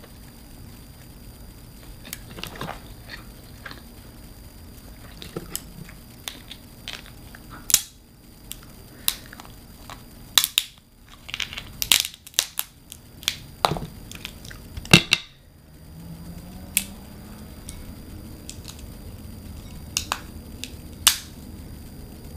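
Blue crab shell being cracked and broken open: a series of sharp, irregular cracks and snaps, thickest and loudest about halfway through.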